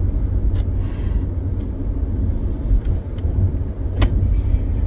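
Steady low rumble of a car in motion heard from inside the cabin, engine and road noise, with a single sharp click about four seconds in.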